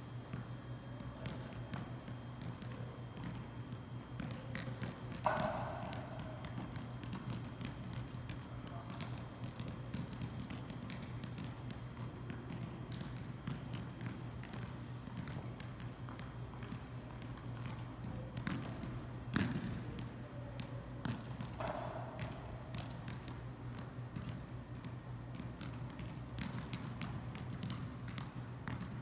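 Size 2 mini soccer ball being juggled: a steady run of light taps as foot meets ball, with a few louder knocks now and then, over a low steady hum.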